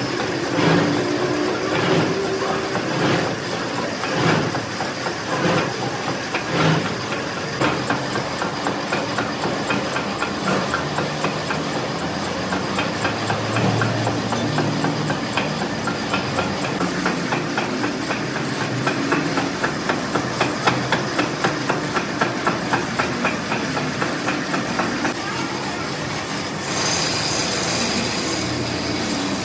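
Metalworking machinery clattering: a steady stream of metallic clicks and knocks that settles into a fast, even run of knocks, about three a second, past the middle, with a brief hiss near the end.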